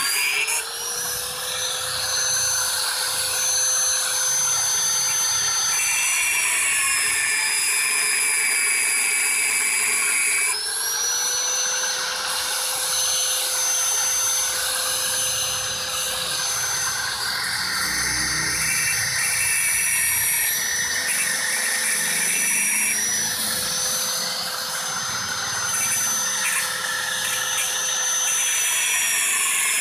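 A high-speed electric power tool running continuously with a high whine. Its pitch sags a little under load several times and then recovers, as it works into a refrigerator compressor's casing.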